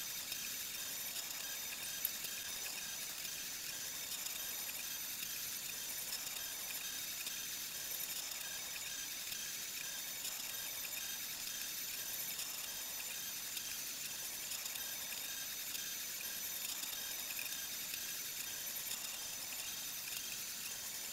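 Monoprice Select Mini 3D printer running a print: a steady mechanical hum with several constant high whining tones from its stepper motors, and a single small click about two seconds in.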